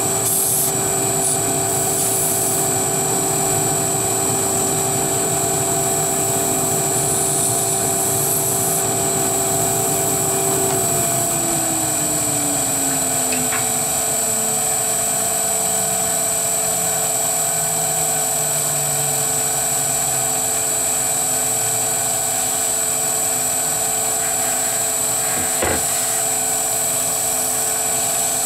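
Wood lathe running with a steady motor whine that, about eleven seconds in, slides steadily down in pitch over the next nine seconds or so as the lathe slows. A constant machine drone runs underneath, and there is a single sharp click near the end.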